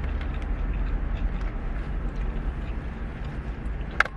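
Steady low rumble of a car heard from inside the cabin, with one sharp click near the end.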